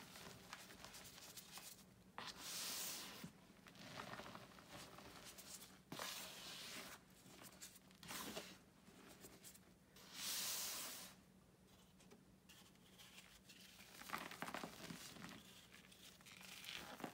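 Hands crushing and crumbling blocks of gym chalk in a bucket of loose chalk powder: faint gritty crunching and rustling, with a few louder hissing bursts as handfuls are squeezed and sifted, the loudest about ten seconds in.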